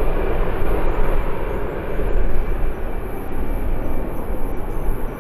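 Jet aircraft engines running, a loud steady rush with a faint high whine.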